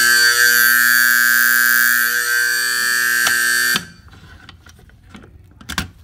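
Simplex 4050 electromechanical motor horn sounding continuously, a loud, steady buzzing tone, set off by a pulled pull station in a fire alarm test. It cuts off abruptly almost four seconds in.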